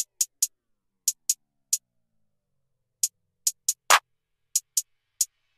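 Sparse drum-machine beat: short, bright ticks in a stuttering, uneven pattern with silence between them, and one heavier hit with a deep low end about four seconds in.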